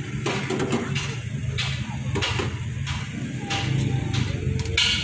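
Metal ladle clinking and scraping against a stainless-steel tray as it scoops fish cakes and meatballs out of the broth, several short sharp knocks, the loudest near the end. A steady low engine hum of traffic runs underneath.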